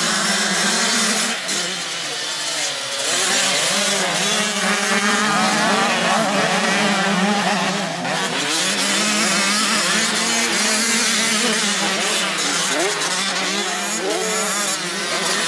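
A pack of 85 cc two-stroke motocross bikes revving hard off the start and racing down the track, several engine notes rising and falling over one another.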